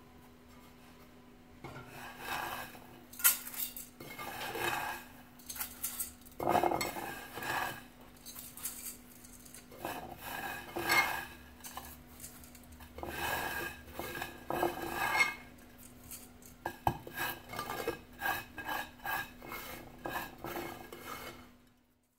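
Oiled fine vermicelli being scooped by hand from a glazed clay dish into the metal steamer basket of a couscoussier: irregular light clinks against the metal and rustling of the noodles, coming in uneven clusters and cutting off suddenly near the end.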